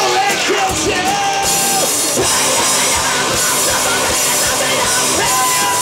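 Live rock band playing: a man singing into a microphone over distorted electric guitar, bass guitar and an electronic drum kit, with held, gliding sung notes over a steady drum beat.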